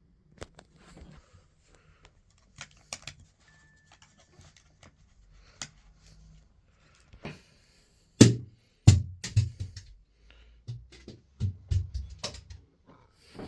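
Scattered light clicks and knocks, then a loud thud about eight seconds in followed by a run of heavy, uneven thumps.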